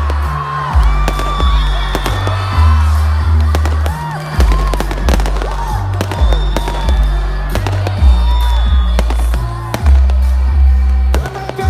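New Year fireworks bursting in many sharp cracks and bangs over loud music with a heavy bass line.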